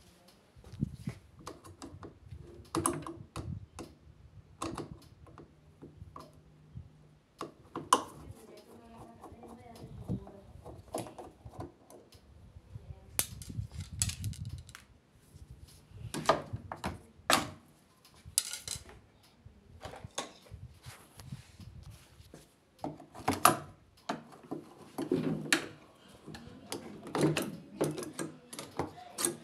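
Irregular clicks, knocks and clatters of sheet-metal panels and plastic parts being handled as an LG washer dryer is taken apart, with some sharper metallic taps in quick runs.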